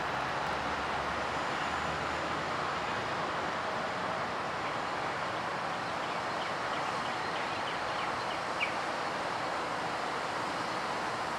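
Steady train noise, an even rush without clear rhythm, with a few faint high chirps past the middle and a single short click a little later.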